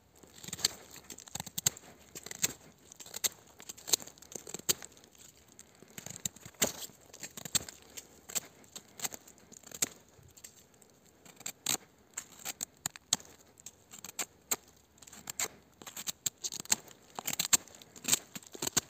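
Tonife Nova fixed-blade knife, with an 8Cr14MoV steel blade, whittling a bark-covered stick. It makes a string of short, sharp cutting scrapes as shavings are sliced off, a stroke every half second to a second at an uneven pace.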